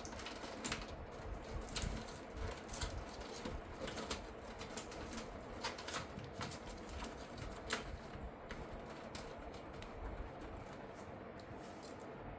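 Irregular clicks and rustles of PC power-supply cables and plastic connectors being handled while a SATA power lead is plugged into a hard disk drive.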